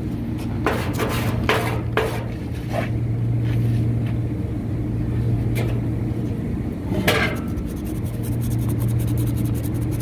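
Scattered metal scrapes and clicks as the keys and shaft of a blower assembly are worked by hand at the wheel hub and bearing, the loudest just after seven seconds. Under them runs a steady low hum.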